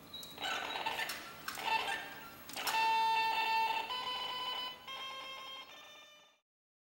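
Electronic clicks and beeps: several sharp clicks in the first three seconds, then a steady beep-like tone with overtones that holds about a second and tapers off, cutting out sharply about six seconds in.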